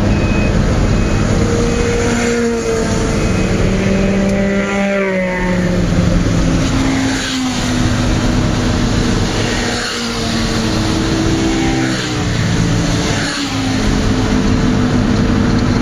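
Car engine and road noise heard from inside the cabin while driving, the engine note stepping up and down in pitch several times.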